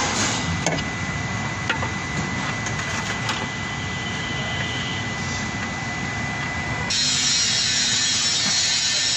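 Steady repair-shop background noise with a constant high whine and a few light clicks. About seven seconds in, a louder steady hiss comes in and holds.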